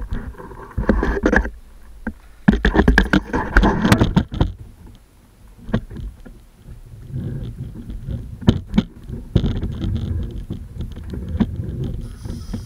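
Water splashing and sloshing around a plastic sit-on-top kayak, with knocks and rattles from the hull and gear, in two loud bursts over the first few seconds; after that a lower, steadier noise with scattered clicks.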